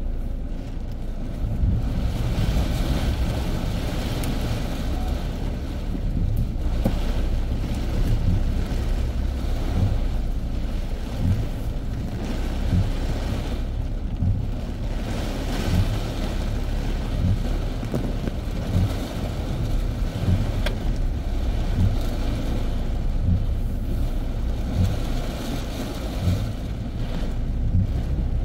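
Very heavy tropical rain pelting a car, heard from inside the cabin over a deep rumble of wind and road noise, with a low thud about once a second.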